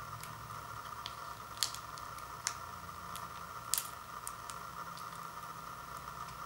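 Small plastic seasoning packet crinkling as fingers tear and squeeze it open, with three sharp crackles at about one and a half, two and a half and nearly four seconds in, over a steady hiss.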